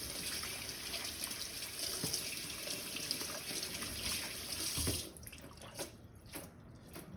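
Kitchen tap running into a sink for about five seconds, then turned off, followed by a few light knocks.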